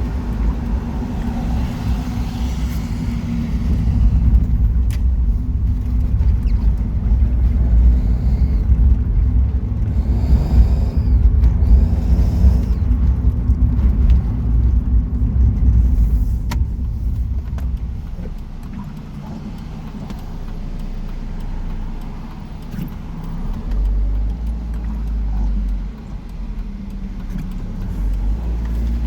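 NA Mazda Miata's four-cylinder engine and exhaust running while driving, a low rumble that eases off about two-thirds of the way through and picks up again briefly. Two short higher whirs rise and fall around ten and twelve seconds in. The owner suspects the whir that comes with throttle is caused by a clogged or broken catalytic converter choking the exhaust.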